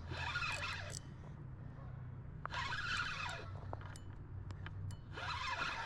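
Fishing reel being cranked in three short spells, about a second each, while a hooked carp is played, over a steady low hum.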